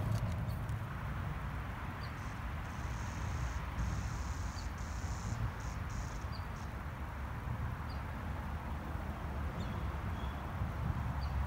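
Insects trilling in short broken stretches from about two seconds in until about halfway through, with a faint short high chirp repeating every second or two, over a steady low rumble.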